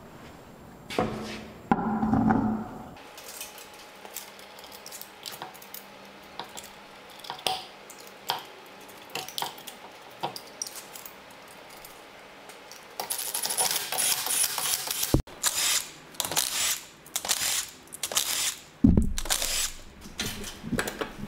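Wheel going back on a car: small metallic clinks of lug nuts being handled and threaded on, then from about two-thirds of the way in a Milwaukee Fuel cordless impact wrench runs, first in a longer run and then in a series of short bursts as it drives the lug nuts down.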